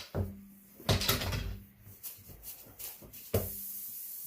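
Tire plug-kit tools clicking and knocking against the tire. About three seconds in, a steady hiss begins: air escaping through the freshly reamed puncture.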